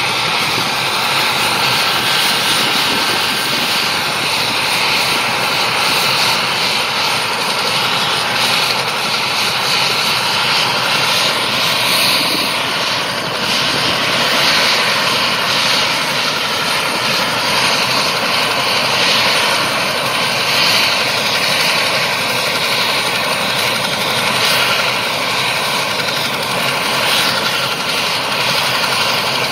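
Mil Mi-17 helicopter's twin turboshaft engines running during start-up with the main rotor turning: a steady turbine whine with a rushing noise, level throughout.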